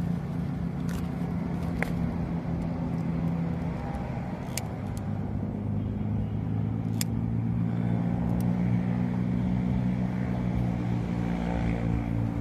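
A motor vehicle engine running steadily, its pitch shifting slightly about four and eight seconds in, with a few sharp clicks.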